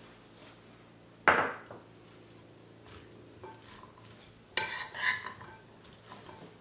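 Metal serving spoon clinking and scraping against a ceramic bowl as a chickpea and vegetable mix is stirred. One sharp clink comes about a second in, then a short run of clinks and scrapes a little past the middle.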